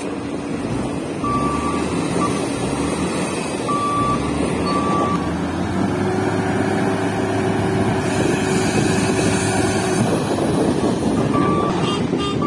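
Diesel engine of an L&T 9020 SX wheel loader running under work, with a reversing alarm beeping in short bursts about a second in until about five seconds, and again near the end. A steady droning tone sits over the engine from about six to ten seconds as the bucket goes into the gravel pile.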